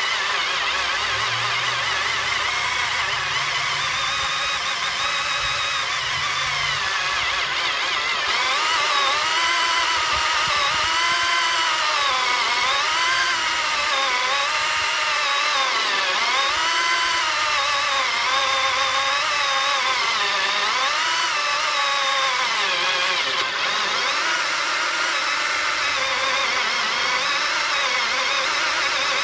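Hitachi power drill spinning a diamond core hole saw as it cuts slowly into a pine board. The steady motor whine wavers up and down in pitch from about a quarter of the way in, as the bit bogs and frees in the wood.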